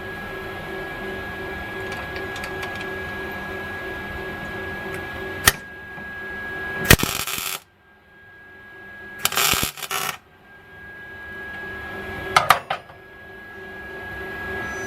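Welder putting tack welds on a bolt in a steel bulkhead: two short bursts of arc noise, about seven and nine and a half seconds in, over a steady machine hum, with a few sharp clicks in between.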